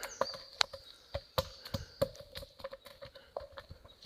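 A heavy rock tumbling and bouncing down a bushy hillside, heard as a string of irregular knocks and clatters.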